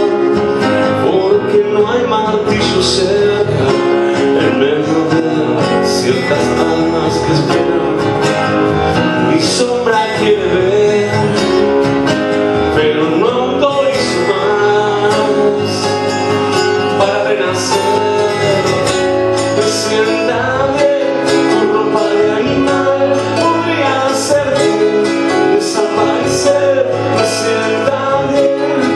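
Live song: a man singing to a strummed acoustic guitar.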